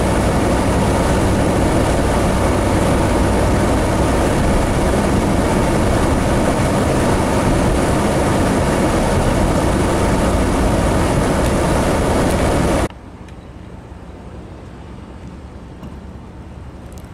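Strong blizzard wind buffeting the microphone: a loud, even rush of noise that cuts off abruptly about 13 seconds in, giving way to a much quieter steady background with a faint low hum.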